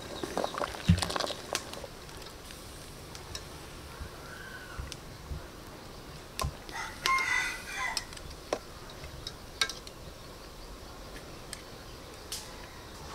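A rooster crowing once, about seven seconds in, over a low background with a few short clinks and knocks, the loudest about a second in.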